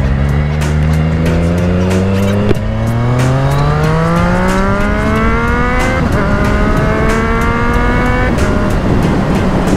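Triumph Street Triple RS three-cylinder engine breathing through a Yoshimura Alpha T exhaust, accelerating under load. Its pitch climbs over most of the stretch, with short breaks about two and a half and six seconds in, then drops lower near the end. Wind buffets the microphone.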